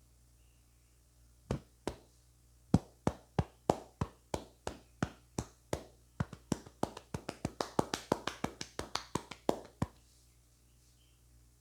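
Hands striking in a percussive head massage: a long run of sharp slaps, about three a second, quickening to about five a second, then stopping.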